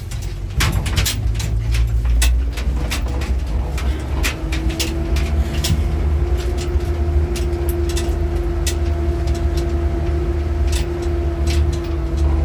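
A motor vehicle running with a steady low rumble and a scatter of sharp clicks and knocks. A steady hum comes in about four seconds in and fades near the end.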